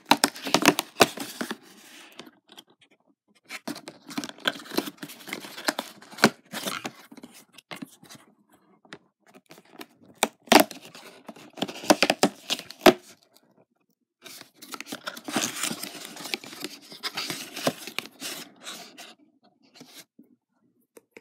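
Perforated cardboard door of an advent calendar being torn and pried open by hand: four bursts of ripping and scraping card, with a few sharp clicks in the middle burst.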